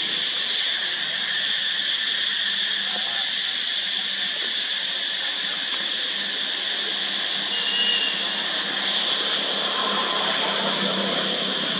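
Steady high-pitched drone of cicadas in the trees, with one brief high chirp about eight seconds in.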